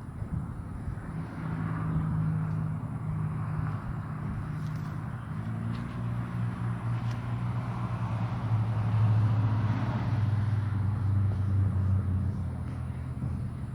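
A motor engine running steadily, its hum shifting slightly in pitch and growing louder past the middle before easing off near the end.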